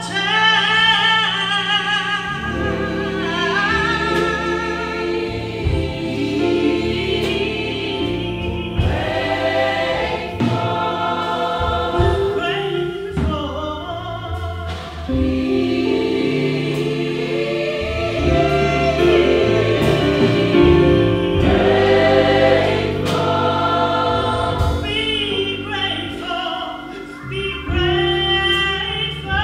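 Gospel choir singing with a female lead vocalist out front, backed by keyboard and guitars.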